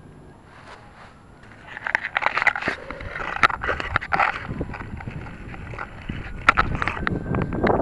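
Grass rustling and scraping against a model rocket body and its onboard keychain camera as it lies in the grass after landing: a faint hiss at first, then from about two seconds in irregular crackling with many sharp clicks.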